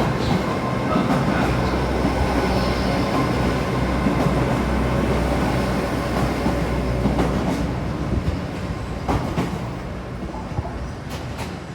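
Train running at a station platform: a steady rumble with a few sharp wheel clicks over rail joints. It fades over the last few seconds.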